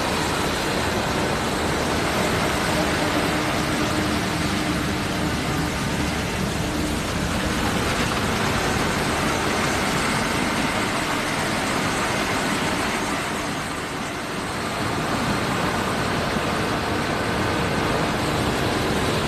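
Heavy farm harvesting machinery running steadily, a continuous engine and mechanical noise, easing briefly about two-thirds of the way through.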